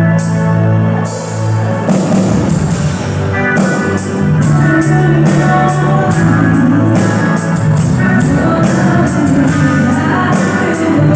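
Live band playing rock music, with electric guitar over sustained low notes and regular drum hits.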